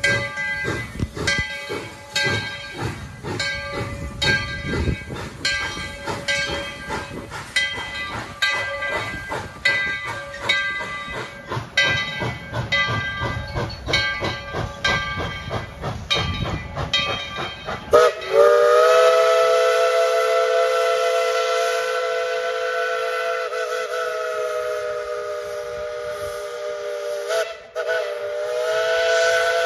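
Tweetsie Railroad No. 12, a Baldwin 4-6-0 narrow-gauge steam locomotive, pulling away with a rhythmic exhaust chuff for a little over half the time. It then sounds its steam whistle: a long blast of several notes together, a brief break, and a second blast near the end.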